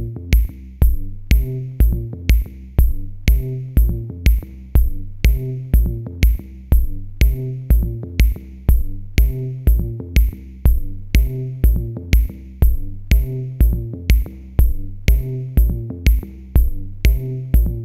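Background electronic music with a steady drum-machine beat, about two beats a second, over a repeating bass line.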